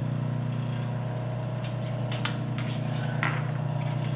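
Steady hum of an industrial sewing machine's electric motor running idle, not stitching, with a few light clicks as the thread is handled at the needle.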